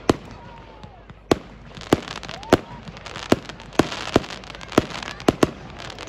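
Fireworks display: aerial shells bursting in sharp bangs, about a dozen at uneven intervals, with crackling from the bursting stars between them.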